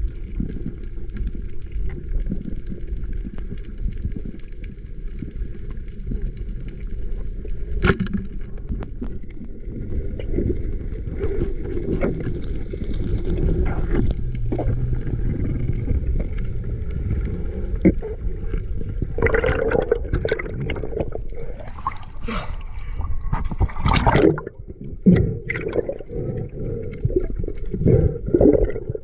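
Underwater sound through a diving camera housing: a steady low rush of water against the housing as the spearfisher swims. A single sharp click comes about eight seconds in, and irregular gurgling bursts and knocks follow in the last ten seconds.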